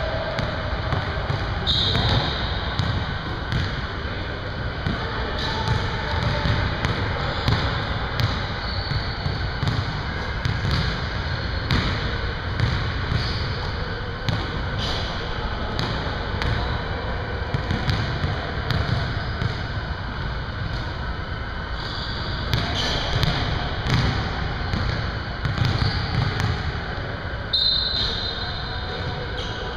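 Basketballs bouncing on a hardwood gym floor, a thud every second or so, with a few short high squeaks.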